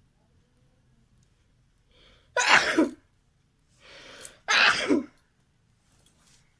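A person sneezing twice, loudly, about two seconds apart, each sneeze coming after a fainter build-up breath.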